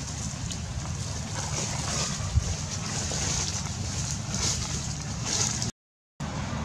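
Outdoor ambience: a steady, fluttering low rumble of wind on the microphone under a high hiss, with faint scattered rustles and one sharp knock about two and a half seconds in. The sound cuts out for about half a second near the end.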